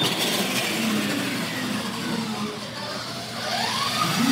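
Electric R/C monster trucks racing on a hard floor: the motors whine and the tyres run, the whine falling away in the first half as they slow, then rising again briefly near the end.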